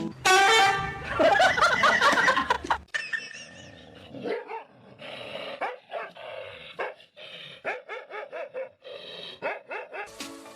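A dog barking, loud and wavering for the first three seconds, then a run of quieter short calls.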